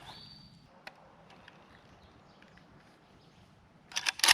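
Quiet outdoor background, then near the end a sudden cluster of loud, sharp cracks: a rifle being fired.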